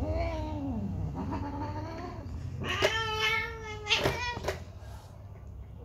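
Longhaired domestic cat caterwauling in a scuffle with another cat: a low moaning call that drops in pitch, a second call, then a longer, higher, wavering yowl broken by a few sharp noises, after which it fades out about five seconds in.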